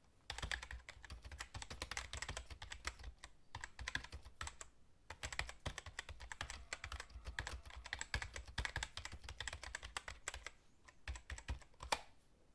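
Typing on a computer keyboard: runs of quick key clicks broken by short pauses, about a third of the way in and again near the end.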